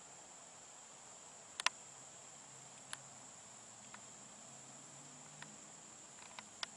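Crickets and other insects singing in a steady, high-pitched chorus. A few sharp clicks cut through it, about a second and a half in, near three seconds and again near the end.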